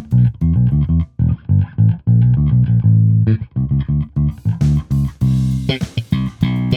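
Electric bass guitar played through an Ampeg Rocket Bass RB-112 100-watt combo amp with a 12-inch speaker, a fast line of short, separated plucked notes. The attacks get brighter and sharper in the second half.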